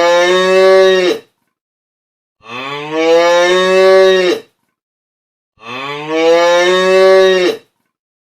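A cow mooing three times. Each moo is a long, even call of about two seconds, and there is silence between them.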